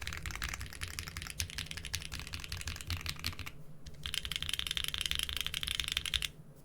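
Fast typing on a modded mechanical keyboard with doubleshot keycaps: a dense run of keystroke clacks that pauses briefly about three and a half seconds in, then resumes and stops just before the end.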